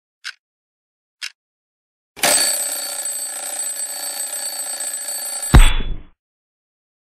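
Clock ticks about once a second, then an alarm clock bell rings loudly for about three and a half seconds and is cut off by a loud thump.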